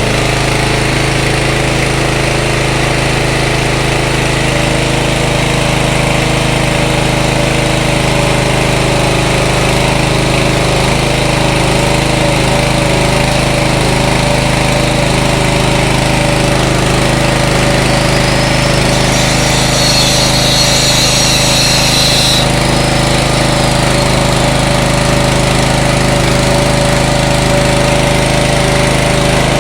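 A 7 hp petrol engine runs steadily, driving an organic-waste pulper combined with a pellet mill. A brief high-pitched sound rises and falls about two-thirds of the way in.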